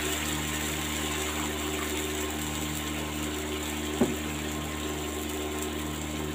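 Steady mechanical hum with a faint hiss of broth bubbling at the edges of a wok; one sharp click about four seconds in.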